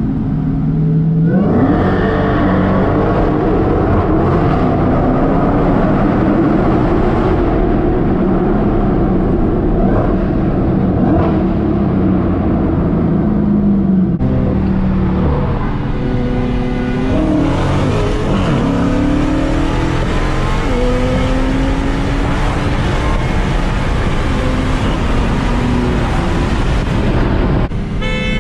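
Dodge Challenger SRT's V8 engine heard from inside the cabin, revving and accelerating hard, its pitch climbing and dropping several times as the revs rise and fall.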